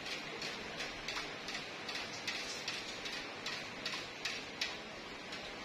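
A hand beating a thick batter in a large steel pot, about three soft slaps a second as it works the mixture.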